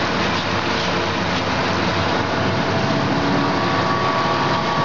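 Corn-snack food extruder running, its electric motor and screw drive giving a steady mechanical noise, with a faint steady whine coming in about three seconds in.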